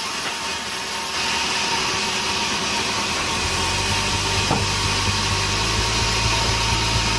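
Sawmill machinery running: a steady mechanical noise, joined about three and a half seconds in by a low, even engine hum with faint regular ticking.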